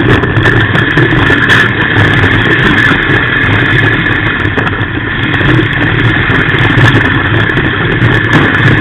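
Off-road race car's engine running loud and steady under load, heard from inside the cabin, easing slightly about five seconds in.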